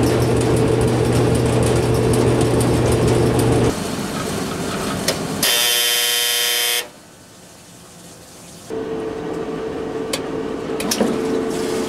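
A 1985 Kenmore 60 Series electric dryer runs with a steady motor and blower hum, which stops abruptly after about four seconds. About halfway through, the dryer's timer buzzer sounds once for just over a second as its timer knob is turned. After a short lull, the Kenmore washer's drain pump starts with a steady hum and runs on, pumping the tub out in the drain cycle.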